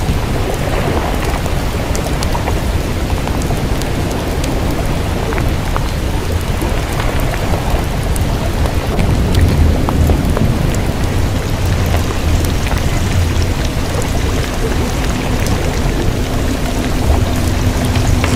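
Steady hissing, crackling noise over a heavy low rumble. A faint steady low hum joins about thirteen seconds in.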